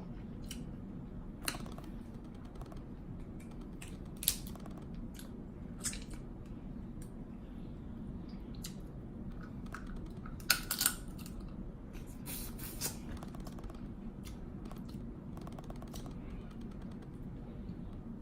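Crab legs being cracked open and eaten: scattered sharp clicks and cracks of shell, a cluster of them about ten to thirteen seconds in, over a steady low hum.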